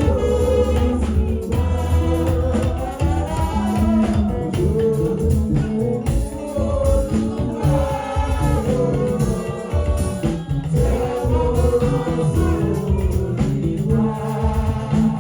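Gospel music: a choir singing over instrumental accompaniment with a steady beat.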